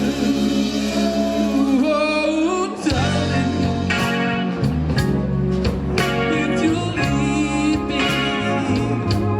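Oldies song with a singing voice over guitar and bass.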